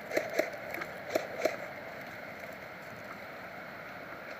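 Four short, sharp clicks in two pairs within the first second and a half, then a steady faint hiss.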